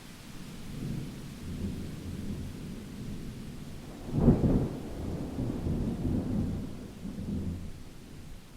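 Thunder rumbling, building up and then breaking into a sharp, loud crack about four seconds in, followed by rolling rumbles that die away.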